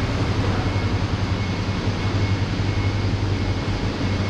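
Automatic curry puff making machine running with a steady low machine hum.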